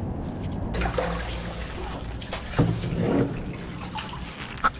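Water sloshing and splashing around a kayak as it is paddled through a concrete culvert, with a few sharper splashes from the paddle strokes.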